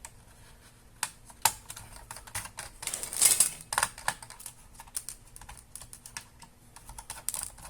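Scattered light clicks and taps of a screwdriver and small screws on a laptop's chassis while the hard-drive screws are taken out, with a short scrape of handling about halfway through.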